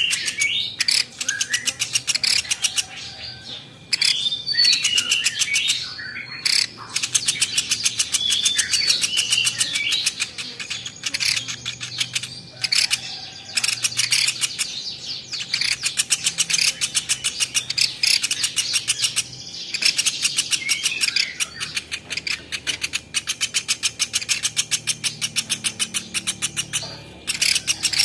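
Velvet-fronted nuthatch (platuk beras) calling: long, very fast trills of sharp, high chips, each run lasting a few seconds with short pauses between, and a few brief whistled notes near the start.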